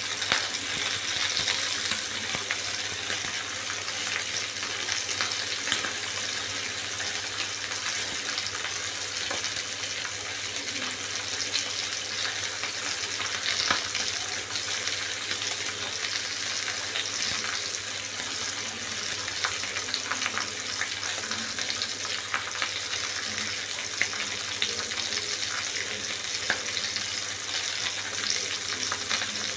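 Chicken frying in hot oil: a steady sizzle with frequent sharp crackles and pops.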